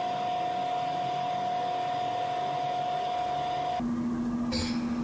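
A steady electronic tone over a hiss, dropping to a lower steady tone about four seconds in.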